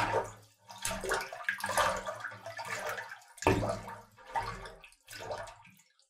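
Water splashes in quick succession, about six short sloshing bursts, the strongest at the start and about three and a half seconds in, the last dying away just before six seconds.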